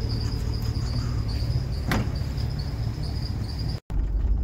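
Steady high-pitched insect song over a low outdoor rumble, with a single sharp knock about two seconds in. Near the end the sound cuts to the low rumble of a vehicle engine running.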